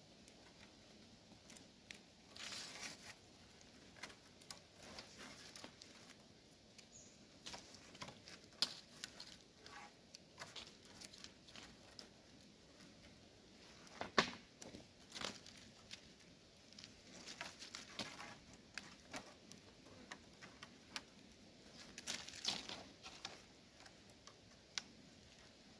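Scattered light rustling and clicking at an irregular pace, with a sharper click about fourteen seconds in.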